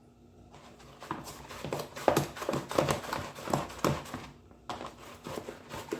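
Repeated soft slapping thumps, about three a second, of a spoon working hot pounded-yam dough in a bowl, pausing briefly a little past four seconds in.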